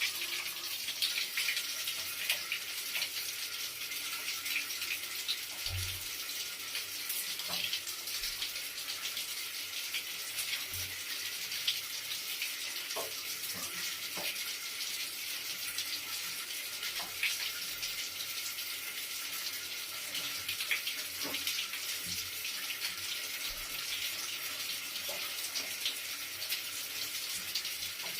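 Running water flowing steadily: a constant hiss of splashing water, with small splashes and a few soft low thuds scattered through it.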